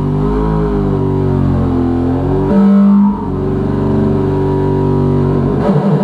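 Waldorf Microwave XT wavetable synthesizer playing low sustained tones whose pitch slowly glides. A louder tone comes in about two and a half seconds in, and near the end the sound turns into a fast pulsing.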